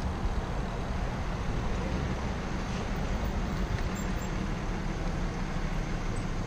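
Steady rush of wind and road noise on a bicycle-mounted camera while riding, mixed with traffic noise from cars alongside.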